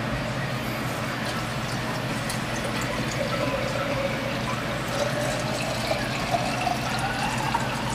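Water from a reverse osmosis drinking-water faucet running into a glass mason jar mug, starting about three seconds in. Its pitch rises steadily as the jar fills.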